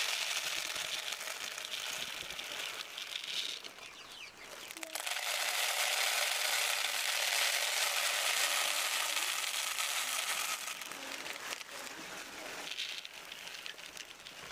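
Dry grain chicken feed pouring from a plastic bag into a plastic chicken feeder, a steady rush of falling grains with the bag crinkling. The pour runs in two long stretches with a short break about four seconds in, and there is a brief third pour near the end.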